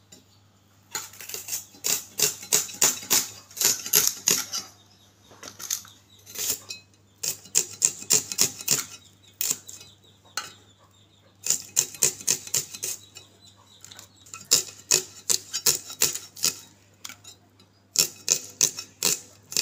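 Peeled red onions being sliced on an arivalmanai, a fixed curved floor blade: runs of quick, crisp cuts, several a second, broken by short pauses.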